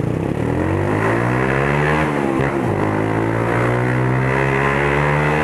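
Motorcycle with a loud straight-pipe exhaust accelerating. The pitch climbs for about two seconds, drops briefly as it shifts gear, then rises again and holds.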